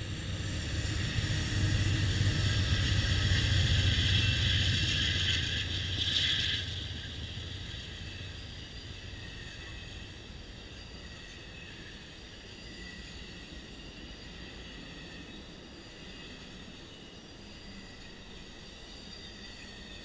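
Amtrak California Zephyr passing close by. The two P42 diesel locomotives are loudest over the first six seconds or so, then the sound drops suddenly to the steady rolling noise of the Superliner passenger cars going past.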